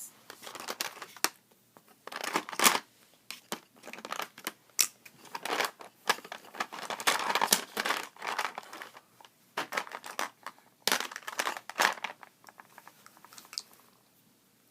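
Plastic packaging crinkling and rustling in irregular bursts as it is handled, with a few sharper crackles.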